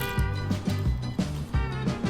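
Upbeat background music with a steady bouncing beat and bass line.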